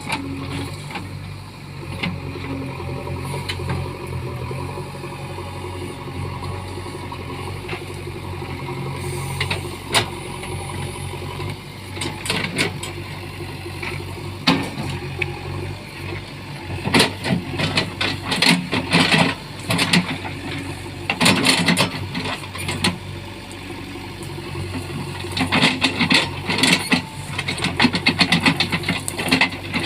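JCB backhoe loader's diesel engine running steadily while clearing trees and brush. From about halfway through come repeated clusters of sharp cracks and knocks, which are the wood and brush being broken.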